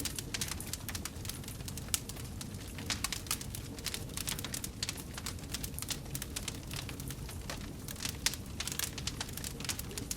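Wood fire burning in a fireplace: a steady low rumble of flames under dense, irregular crackling and popping, with a few sharper louder pops about two seconds in and around eight seconds.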